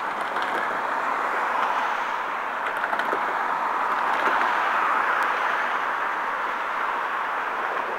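Steady noise of road traffic passing on the bridge's carriageway, mostly tyre hiss, with a few faint clicks.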